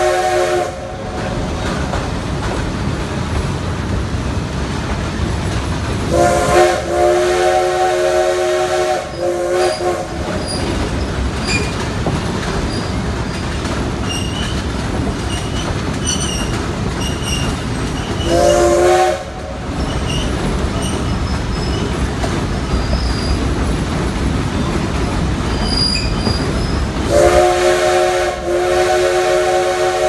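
A locomotive's multi-note chime sounding in a long-long-short-long pattern: one blast ends about a second in, a long blast comes about six seconds in, a short one near the middle, and a long one starts near the end. This is the grade-crossing warning signal. Between the blasts the train's wheels keep up a steady rumble on the rails, heard from a riding passenger car.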